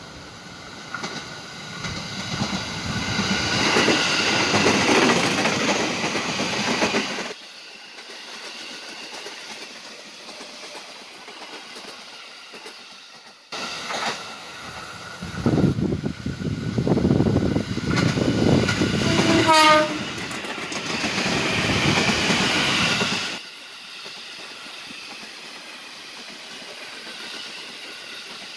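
Ex-JR 205 series electric commuter trains passing on the track, their wheel and running noise swelling loud twice and each time cutting off suddenly. During the second pass there is one short horn blast.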